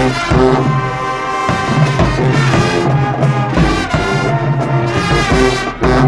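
Marching band brass section playing a tune in full, horns over deep bass-drum hits.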